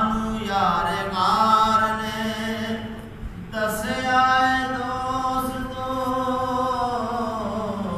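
A man reciting a Punjabi naat unaccompanied, in long held melodic phrases, with a short breath break about three seconds in.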